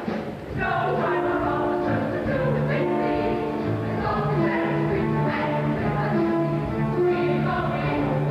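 Stage musical number: an ensemble chorus singing over a pit accompaniment with a steady, pulsing bass line. The music swells in about half a second in and then keeps a regular beat.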